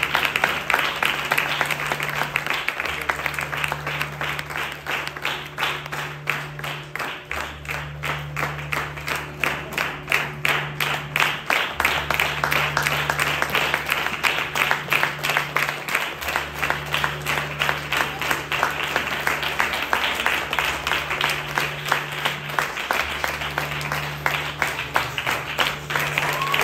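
Audience applause at a dance curtain call, settling about six seconds in into steady rhythmic clapping in unison. Music with a slow, alternating low bass note plays underneath.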